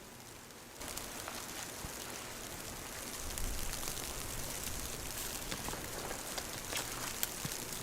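Steady patter of precipitation falling on a surface, full of small ticks, starting abruptly about a second in.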